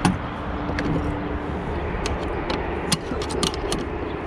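A series of sharp clicks and snaps as a wiper blade is unclipped from its arm and the new one is fitted. The loudest click comes right at the start, with a quick run of them about three seconds in, over a steady low vehicle rumble.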